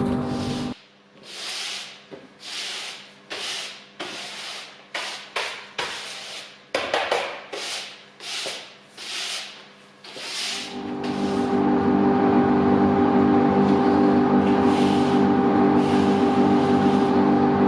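A workshop dust extraction motor cuts out. About a dozen short rubbing swishes follow, one roughly every 0.7 s, like chips being swept across the floor. About ten seconds in, the extractor motor spins up again and runs steadily with a humming tone, with a few fainter swishes over it.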